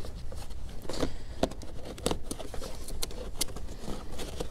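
A dark cover panel being handled and pressed into place over wiring: a scatter of light clicks and knocks, irregular and unrhythmic.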